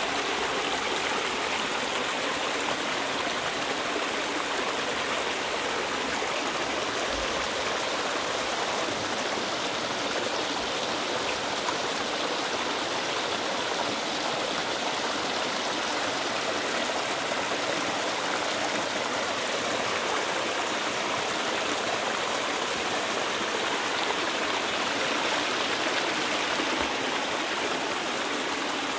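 Steady rush of cascading creek water running over rocks, an even splashing hiss with no break.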